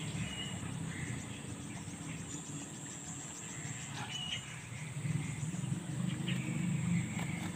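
Outdoor riverside ambience. Birds chirp briefly about five times, with a faint steady high insect drone behind them. A steady low rushing noise, the loudest part, underlies it all.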